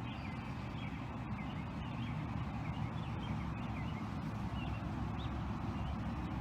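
Steady low rumble of road traffic with faint, scattered small-bird chirps.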